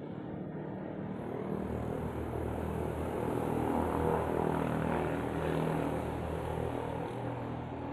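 An engine passing by: a steady drone that swells to a peak about halfway through and then fades away.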